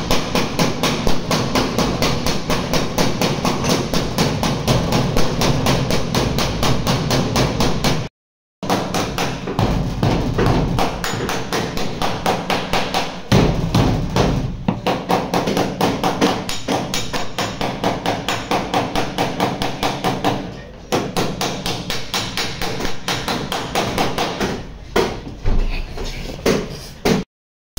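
Rapid, steady run of metal hammer blows on a car's sheet-steel body panel, worked with a hammer and chisel. The blows break off twice for an instant.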